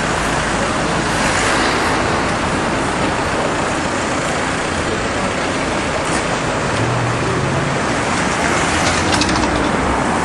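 Street traffic: cars driving past on the road, a steady noise of engines and tyres.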